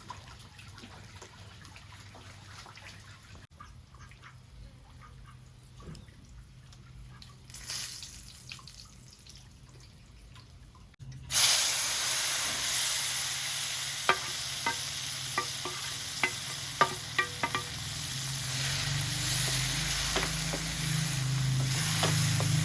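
Food frying in a pan: a loud, steady sizzle with scattered sharp pops that starts suddenly about halfway through. Before that there is only faint background sound with a few light ticks.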